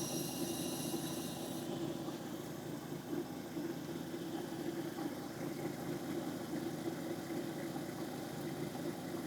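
Electric lapidary grinding machine running steadily.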